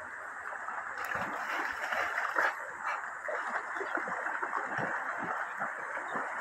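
Shallow river running over stones, with irregular splashing as dogs wade and bound through the water; the loudest splash comes a little over two seconds in.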